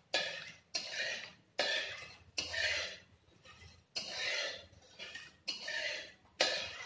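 Metal spatula scraping round a black kadai, stirring sliced onions frying in oil. The scrapes come in repeated sudden strokes, about one a second, each trailing off quickly.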